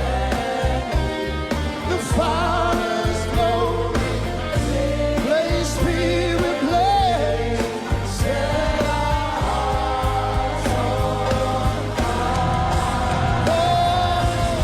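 Gospel worship music: voices singing a melody over a full band with bass and drums.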